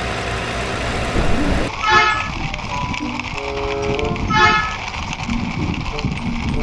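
Vehicle horn toots: two short blasts about two and a half seconds apart, with a lower tone sounding between them, over steady low noise.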